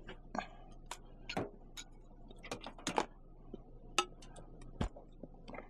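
Irregular light clicks and knocks of scrap items being handled and shifted in a skip, a dozen or so scattered sharp taps.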